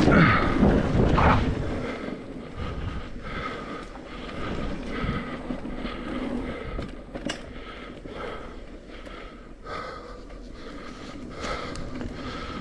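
Mountain bike descending a dirt bike-park trail: wind buffeting the microphone over the rattle and rolling noise of the bike on the ground, loudest in the first second or so.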